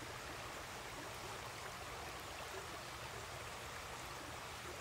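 Shallow creek running steadily over a concrete streambed, a continuous wash of water.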